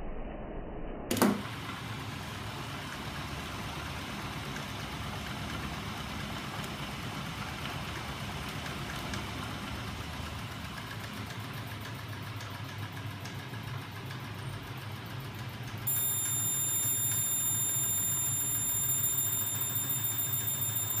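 Electric motors of a home-built magnet engine rig running with a steady low hum. A single sharp snap comes about a second in, and a set of steady high whines joins about three-quarters of the way through.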